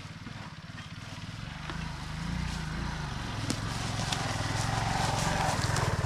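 Small motorcycle engine running as the bike rides closer over forest ground, growing steadily louder.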